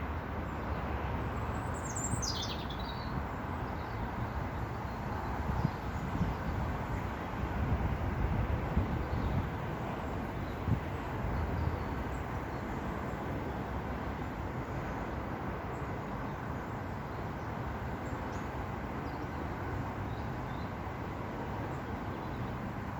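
Steady low outdoor background noise. A single high bird call sweeps downward about two seconds in, and a few faint chirps follow later.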